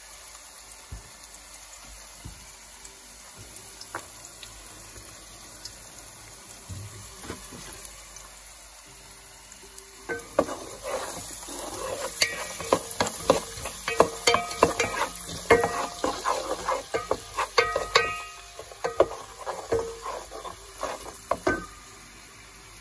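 Chopped onions sizzling quietly in hot oil in a rice cooker's inner pot. About ten seconds in, a wooden spoon starts stirring them, scraping and knocking against the pot with a ringing tone, and stops a second or so before the end.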